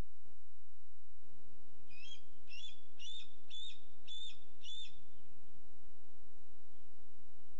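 A bird calling six times, about two short whistled notes a second, over a steady low hum.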